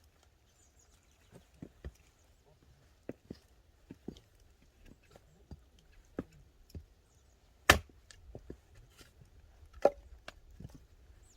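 Firewood being split by hand: a run of irregular wooden knocks and chops, with two sharp, much louder strikes about eight and ten seconds in.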